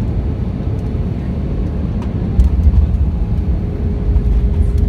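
Cabin noise of an Airbus A319 rolling down the runway after touchdown: a loud, low roar from the engines and the wheels on the runway, growing louder about halfway through, with a steady hum joining near the end.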